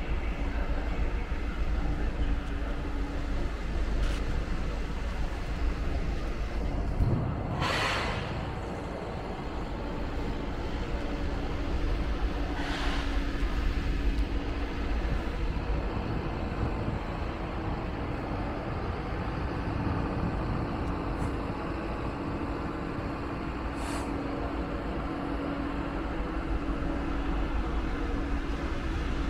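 Train at a station platform: a steady rumble and hum, with a short, sharp hiss of compressed air, typical of air brakes, about eight seconds in and a weaker hiss around thirteen seconds.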